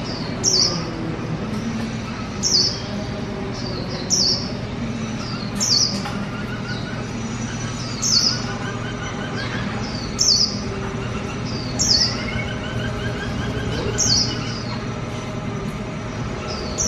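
Caged songbirds, a black-throated laughingthrush and a white-eye, calling: a short, high, falling chirp repeats about every second and a half to two seconds over fainter, lower warbling phrases. A steady low hum runs underneath.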